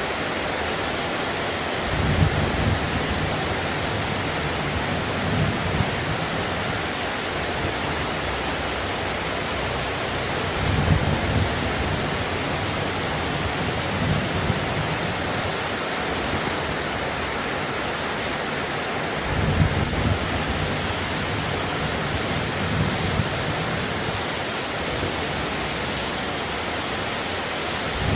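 Steady rain falling, with distant thunder rolling low three times, each roll lasting several seconds, and a fourth beginning near the end.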